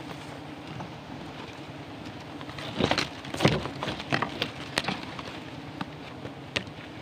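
Twigs and leaves crackling and rustling as a gloved hand handles a wild honeybee comb on its branch, with a cluster of sharp crackles from about three to five seconds in and one more near the end, over a steady low hum.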